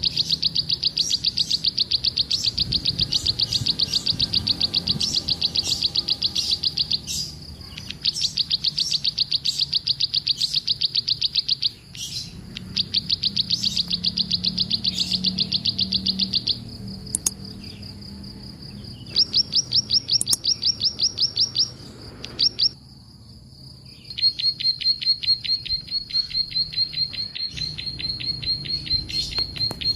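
Bar-winged prinia (ciblek) calling: fast runs of sharp, high, repeated chirps lasting several seconds each, broken by short pauses. A faint steady high tone runs underneath in the second half.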